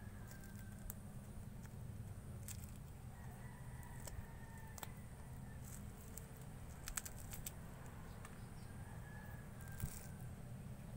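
Pomelo segments being peeled by hand: scattered light clicks and small tearing sounds as the membrane is pulled away, over a steady low hum.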